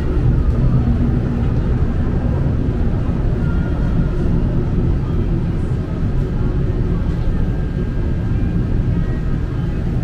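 Hong Kong Peak Tram, a cable-hauled funicular car, running along its track: a steady low rumble heard from inside the car.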